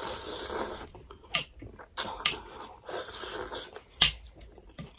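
Noodles of chicken thukpa slurped in three long noisy sucks, with a few sharp clicks in between, the loudest about four seconds in.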